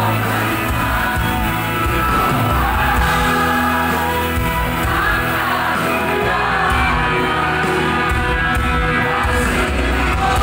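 Live band music with a woman singing lead into a microphone, amplified through the PA system.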